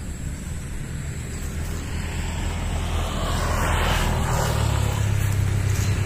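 A car approaching on the road, its engine hum and tyre noise growing steadily louder.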